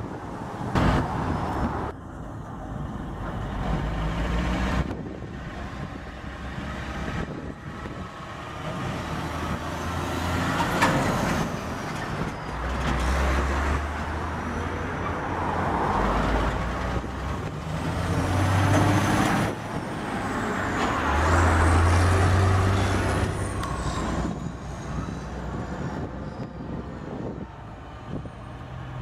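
Diesel semi tractors hauling belly-dump gravel trailers pull past, their engines running under load and swelling and fading several times as trucks move through.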